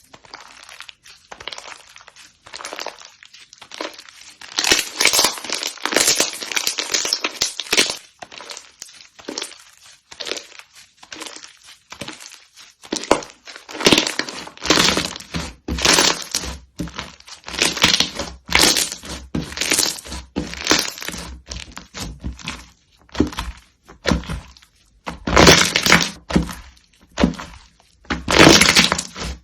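Crunchy slime being pressed and worked, making bouts of crackling and crunching that grow denser and louder in the second half.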